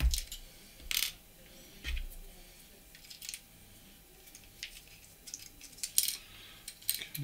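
Scattered light clicks and taps from a Hobby Master 1:72 diecast Tornado model being handled, its small metal and plastic parts knocking and clicking together as the landing gear and gear doors are worked. A sharper click comes about a second in, a soft thump near two seconds, and a quick run of clicks near the end.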